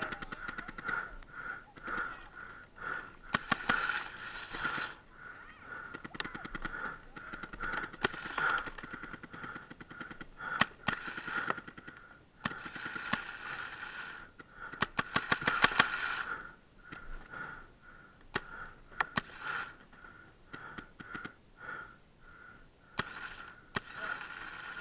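Paintball markers firing, single shots and rapid strings of shots; the longest and loudest string comes about fifteen seconds in. A steady pulsing high tone runs underneath.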